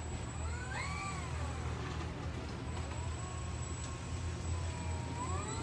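An animal calling in drawn-out, pitched cries that glide up and down. The first rises and falls about half a second in, a longer, flatter one follows from about three seconds in, and another starts rising near the end, over a steady low hum.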